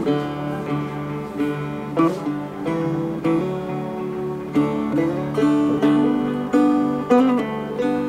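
Instrumental background music led by plucked acoustic guitar notes.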